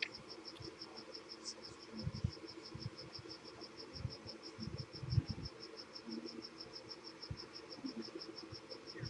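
Rapid, steady high-pitched chirping at about seven pulses a second, with faint low knocks and bumps underneath.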